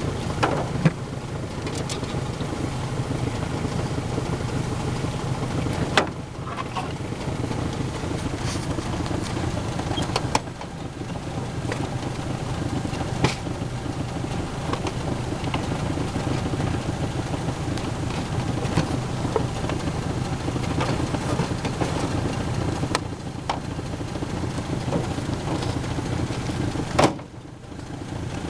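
Steady low hum of a small motor running, with a few sharp clicks and knocks scattered through it; the hum dips away briefly near the end.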